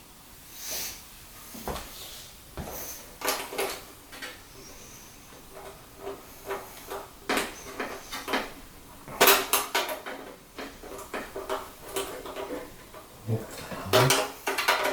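Irregular clicks and clatter of small hard metal and plastic parts being handled, loudest in a quick flurry about nine seconds in and again near the end.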